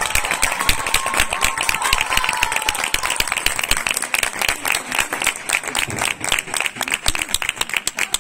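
Audience applauding with rapid, irregular claps. Faint music fades out about three seconds in.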